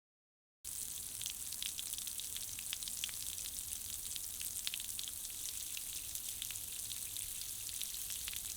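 Foley rain effect: a steady hiss of dense, tiny pattering ticks, like rain falling. It starts abruptly just under a second in.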